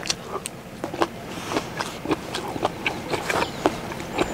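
Close-up chewing of crisp food: irregular crunches and wet clicks, picked up by a clip-on microphone at the collar.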